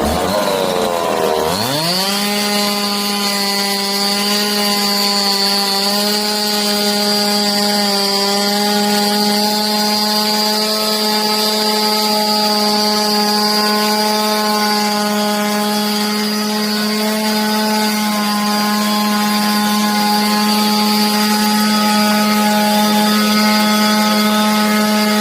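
Two-stroke chainsaw running at high revs with a steady pitch. Just after the start its pitch dips low and then climbs back up.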